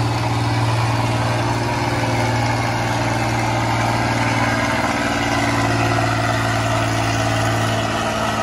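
Car engine idling steadily with a low, even note.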